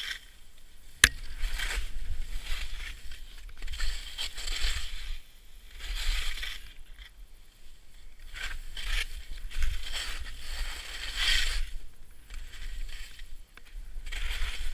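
Skis hissing and scraping through snow in a string of turns, a sound that swells and fades every second or so over a low rumble. A single sharp click about a second in is the loudest sound.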